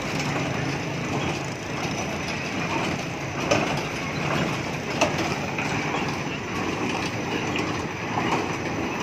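Turning carousel running with a steady mechanical rumble and clatter, with two sharp clicks about three and a half and five seconds in.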